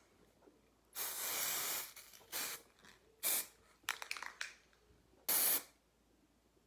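Aerosol glitter hairspray hissing out of the can in about five bursts. The first burst lasts about a second and the rest are shorter. The can sounds like a spray paint can.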